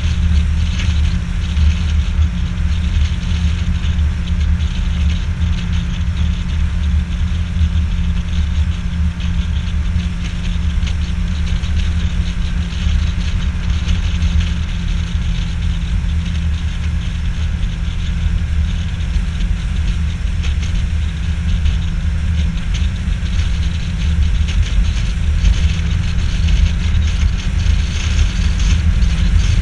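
Boat's outboard motor running steadily under way, a low drone, with a steady hiss of wind and water over it.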